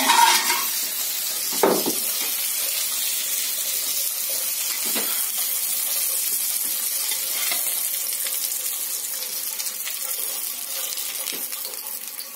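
Oil sizzling in a frying pan around batter-fried chicken chops, an even hiss that fades away near the end. A couple of light knocks of the spatula come through it.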